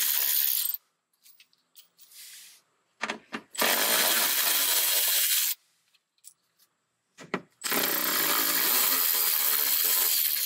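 Milwaukee cordless electric ratchet spinning out 10 mm bolts from the underbody oil filter access panel, in three motor runs of about two seconds each. The first run stops within the first second, the second comes about 3.5 seconds in, and the third starts about 7.5 seconds in. Small clicks fall between the runs.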